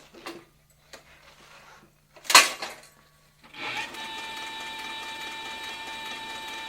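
Cowboy CB4500 walking-foot leather stitcher stopped briefly: a few light clicks, then a single loud sharp clack a little over two seconds in. About a second later the machine starts stitching again and runs steadily with a high motor whine.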